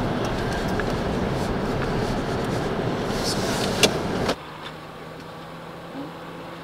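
Car driving, a steady rush of road and engine noise with one sharp knock about four seconds in. It then cuts off abruptly to a much quieter steady low hum.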